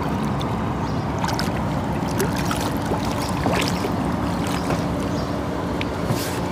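A hooked catfish thrashing and splashing at the water's surface beside a small boat, heard as scattered short splashes and knocks. A steady low mechanical drone runs underneath.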